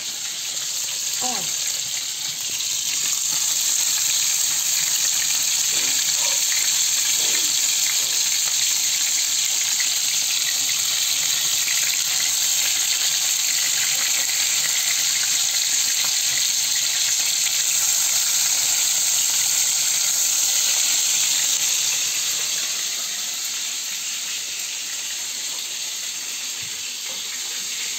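Meat cutlets sizzling in oil in a frying pan, a steady hiss that rises a couple of seconds in and eases off near the end, with a spatula turning them.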